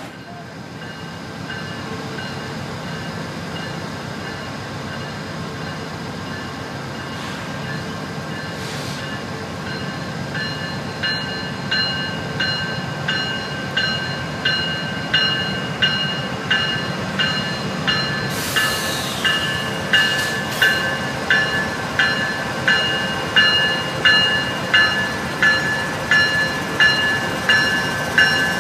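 Union Pacific freight diesel locomotives rolling past on the adjacent track, their engines a steady low drone. A locomotive bell rings over it about once a second, growing louder as the locomotives draw near and pass.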